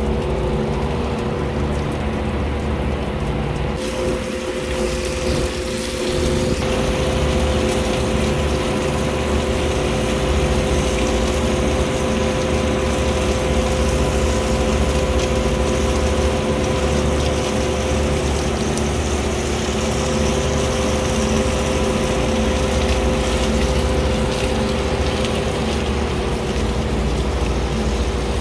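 Hose water spraying and splashing through a refrigeration rack's air-cooled condenser coil, over the steady hum of the running condenser fans. The hiss of the spray gets louder about four seconds in.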